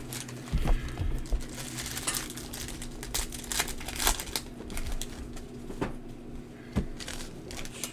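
Trading-card pack wrappers and cards being handled: irregular crinkling and rustling with small scattered clicks. A steady low hum runs underneath.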